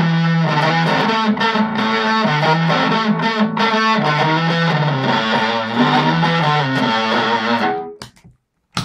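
Electric guitar (Ibanez Performer PF-200) played through a Danelectro Cool Cat Fuzz CF-1 pedal into a Pignose amp: a fuzz-distorted riff of sustained low notes, which stops about a second before the end.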